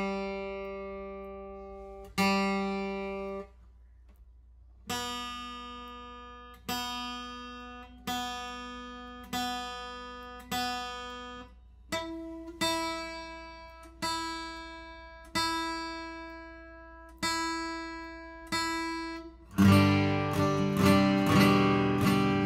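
Steel-string acoustic guitar, single open strings plucked one at a time and left to ring and fade while being checked on clip-on tuners. A lower string sounds twice, then after a short pause a higher string is plucked about every second and a half, then a higher one again. Near the end, louder strummed chords begin.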